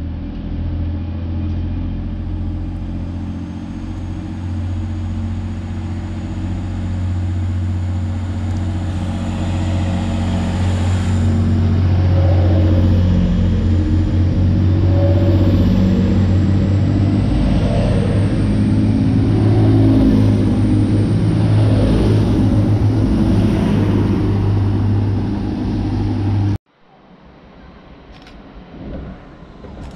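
Two coupled Class 185 diesel multiple units running through the platform, their underfloor Cummins diesel engines giving a loud, steady low drone with a faint high whine above it, building up over the first dozen seconds. It cuts off abruptly near the end, leaving a much quieter rumble of another train approaching in the distance.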